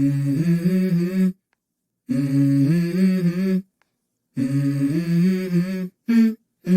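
Background music: a wordless vocal melody in three phrases of about a second and a half, each cut off abruptly by a gap of silence, with a short fragment near the end.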